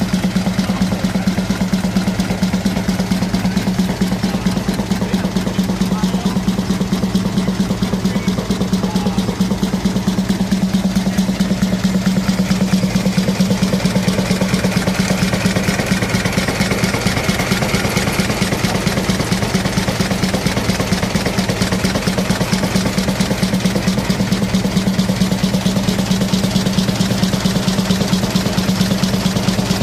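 A.D. Baker Uniflow 23-90 steam traction engine running steadily under load, belted to a threshing machine. It gives a fast, even beat over a steady low hum.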